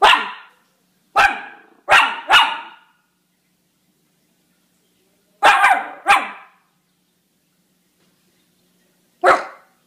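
Miniature schnauzer barking: about eight short, sharp barks in bunches, a single bark, then a quick pair, then three in a row, and one last bark near the end, with silent gaps between.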